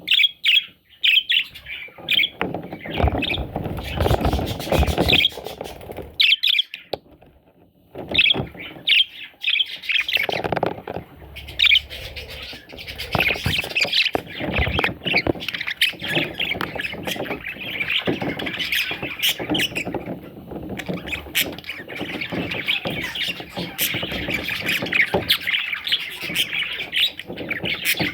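Budgerigars chattering and chirping in a flock, a dense run of short twittering notes with occasional harsher squawks. It drops to a brief lull about seven seconds in, then picks up again.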